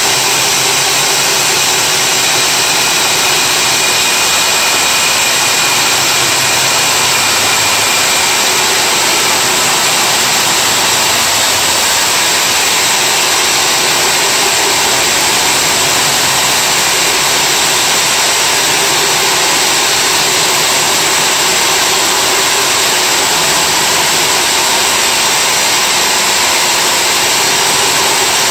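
Milwaukee wall-mounted core drill running steadily as it bores into a concrete wall, a loud, even whir.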